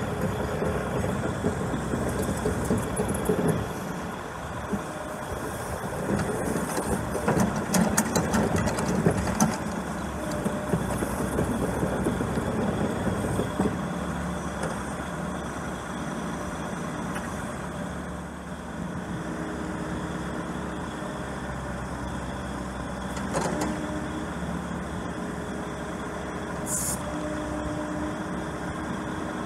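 Diesel engine of a 2008 Bobcat 442D mini excavator running under load as the machine tracks and swings its boom and arm. A run of metallic clicks and clanks comes about six to ten seconds in, and there is a brief hiss near the end.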